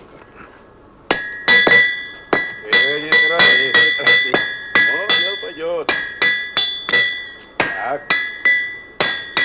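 Blacksmith's hammers striking metal on an anvil: a run of sharp ringing blows, about three a second, starting about a second in.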